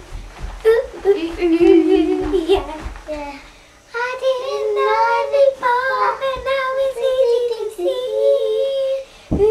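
Two young children singing without words that the ear can pick out, holding long notes. Light thumps under the first three seconds, then a short pause and a higher voice carrying on with sustained notes.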